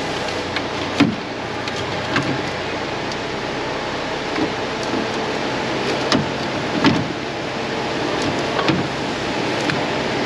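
Scattered short clinks and knocks of tools and parts being handled around a truck diesel engine's alternator and belt drive, over a steady noisy hum.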